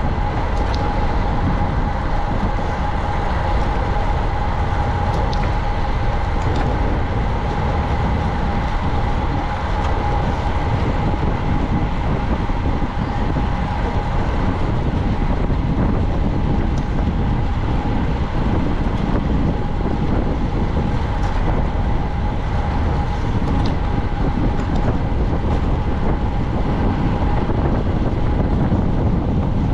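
Steady rush of wind and road noise from a racing bicycle ridden at speed, with a thin steady whine running through it.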